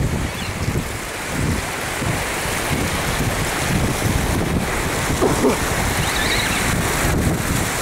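Ocean waves washing against rocks, with wind buffeting the microphone in low rumbling gusts.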